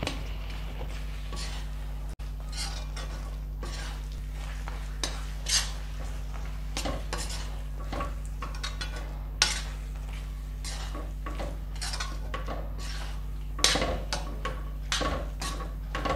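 Metal spatula stirring and scraping a thick syrupy mixture of khoa and nuts around an iron kadhai: irregular scrapes of metal on metal with a few sharper knocks, over a steady low hum.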